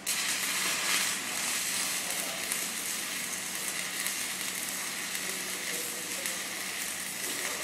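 Stick-welding (SMAW) arc struck right at the start, then crackling and sizzling steadily as a hot pass is run on 6-inch schedule 80 steel pipe.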